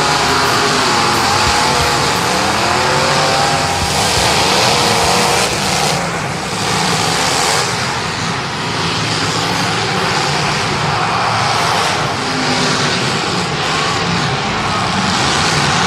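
Several car engines running hard at high revs, their pitch rising and falling as the cars race and jostle.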